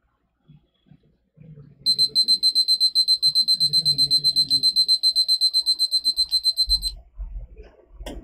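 Countdown timer alarm on an interactive whiteboard beeping rapidly in a single high tone, signalling that the 15-second timer has run out. It cuts off about five seconds later as the timer is touched.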